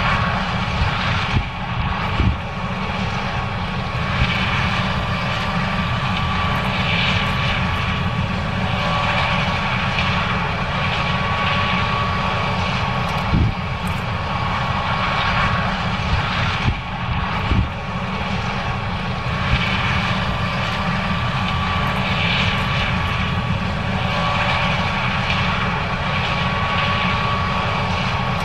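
John Deere S770 combine running steadily while harvesting corn: a constant machine drone with a high, even whine, a hiss that swells and fades every couple of seconds, and a few short knocks.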